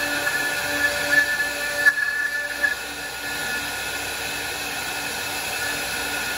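Multi-head CNC router with four spindles cutting wooden posts turned on rotary axes: a steady machine hum and whine under the noise of the cutters in the wood, with irregular sharp cracks in the first few seconds. The highest whining tone fades out about three seconds in.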